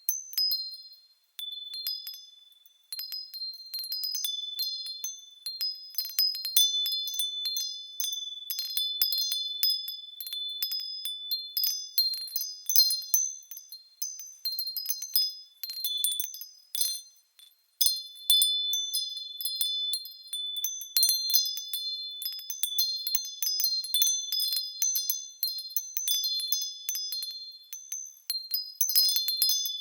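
Wind chimes tinkling in a breeze: a few high ringing notes struck irregularly and overlapping, with a short lull about a second in.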